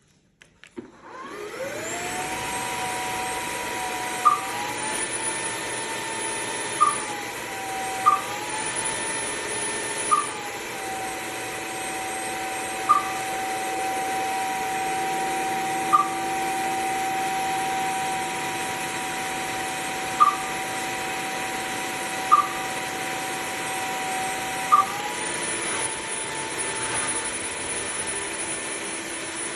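Bissell CrossWave OmniForce cordless wet-dry vacuum starting up about a second in and running with a steady motor whine. The pitch steps up and down a few times, and about nine short, sharp chirps come at irregular intervals.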